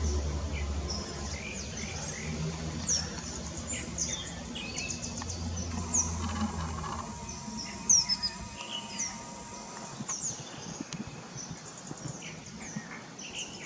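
Low rumble of a Boeing 787-9 airliner's jet engines fading away after it passes, gone a little over halfway through, while small birds chirp throughout.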